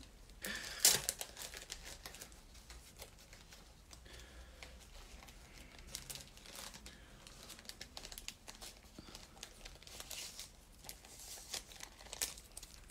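Paper crinkling and rustling as a stack of photo cards is handled and leafed through, with scattered small crackles; the sharpest comes about a second in.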